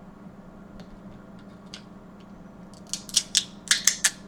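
Snow crab leg shells being cracked and snapped apart: a few faint ticks, then a quick run of about half a dozen sharp cracks near the end.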